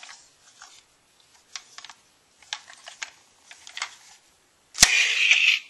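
Scattered light clicks and taps. Near the end comes a sharp click, then a louder rustling noise.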